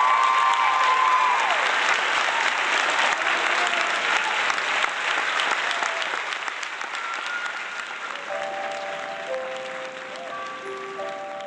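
Audience applauding over music, with a held note gliding off in the first second or so. The applause slowly fades, and steady sustained musical notes come in about eight seconds in.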